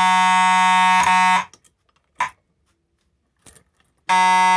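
Simplex 2901-9838 fire alarm horn sounding in two steady blasts, one of about a second and a half and a second starting near the end, with a couple of light clicks between. The horn cuts in and out as the BG-50 pull station is worked and won't stay closed.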